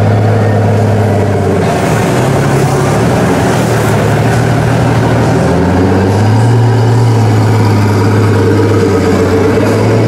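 Pagani Huayra's twin-turbo V12 running at low revs as the car pulls away slowly: a steady deep drone whose pitch rises a little about six seconds in and again at the end.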